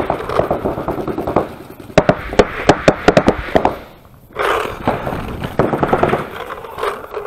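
Paintball markers firing in rapid strings of sharp pops, with a short lull about four seconds in.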